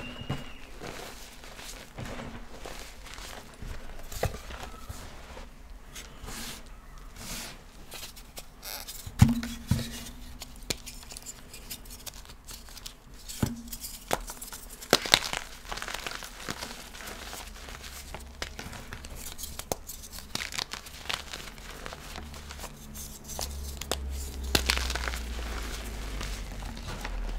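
Light blue reformed gym chalk blocks being crushed and crumbled: a dense, irregular run of dry crunches and crackles, with a few louder snaps.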